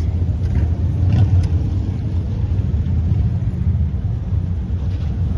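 Motorcycle engines running, a steady low drone.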